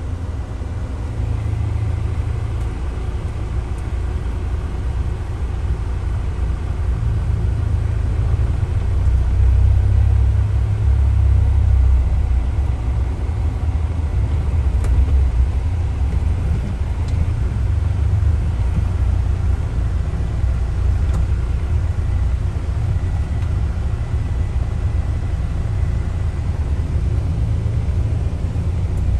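Car running on a dirt track, heard from inside the cabin: a steady low engine and tyre rumble that swells a little about a third of the way through.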